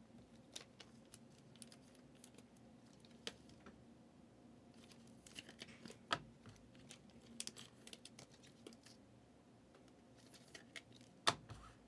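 Faint rustling and scattered clicks of trading cards being flipped through and handled by hand, with a few sharper taps, the loudest near the end.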